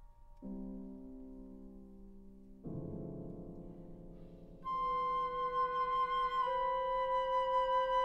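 Chamber music for flute, clarinet and piano. Two sustained piano chords sound, then the flute and clarinet come in together about halfway through on long held notes, moving up a step a couple of seconds later.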